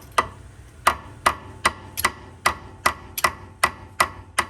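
Rapid, evenly paced hammer blows on the stuck steel spindle of an 1988 Ford Bronco II's front axle, about eleven ringing metal strikes at roughly two and a half a second, beating it to break it loose after a puller failed to free it.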